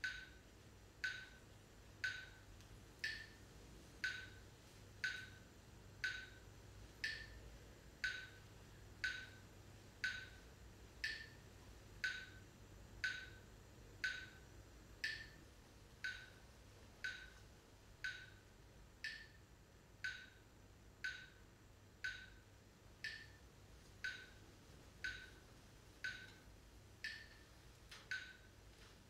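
Steady ticking: one short, sharp tick about every second, kept at an even pace, over a faint low hum.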